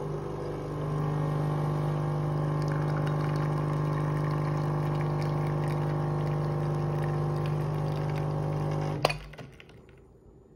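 Schaerer Coffee Club espresso machine brewing an espresso: its pump hums steadily and gets louder about a second in as coffee pours from the spout, then stops with a click about nine seconds in as the shot finishes.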